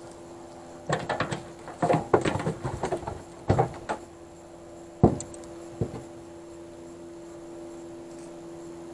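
Bursts of clicking and knocking as fishing tackle is handled while a small perch is reeled in and landed in an aluminium boat, then two single knocks. A faint steady hum runs underneath.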